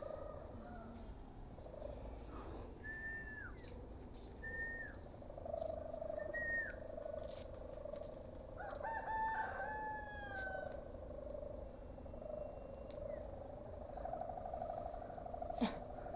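A rooster crows once about nine seconds in, a call of a second and a half that falls at the end. Before it come three short, high chirps from birds. A faint steady hum runs underneath through the second half.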